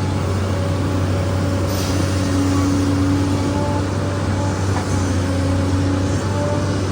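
SANY excavator's diesel engine running steadily with a deep, unbroken hum. A higher tone swells for about a second and a half, starting about two seconds in.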